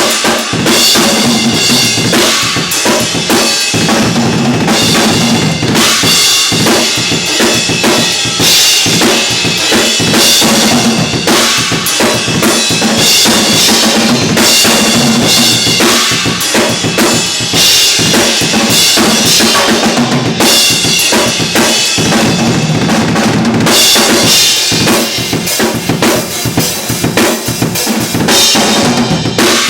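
Acoustic drum kit played continuously, with cymbals ringing through much of it.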